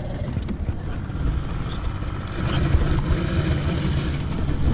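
Yamaha 50 outboard motor started on the ignition key and running, a little louder from about halfway in.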